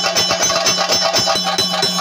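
Kerala temple ensemble music for theyyam: chenda drums beaten in fast, dense rolls, with cymbals ringing over a steady held tone.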